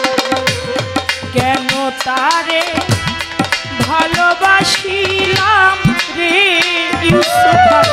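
A woman singing a Bengali Baul folk song, her voice wavering and bending through long held notes, over steady hand-drum strokes whose low notes bend in pitch, as a tabla's do.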